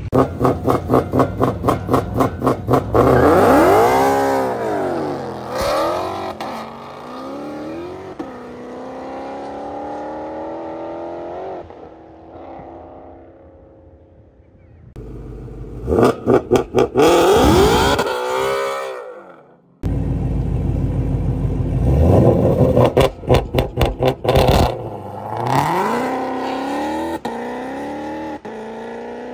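Shelby GT500's V8 revving in rapid stuttering pulses, about four a second, then accelerating away hard, its pitch climbing through gear changes and fading into the distance. The same launch-and-pull pattern comes twice more after breaks.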